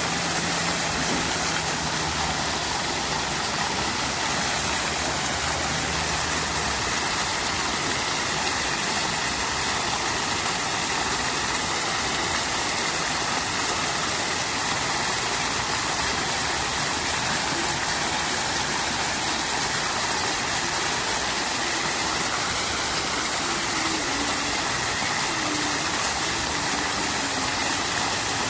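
Fountain water splashing and trickling steadily in a constant rush. A faint low hum lies under it during the first few seconds.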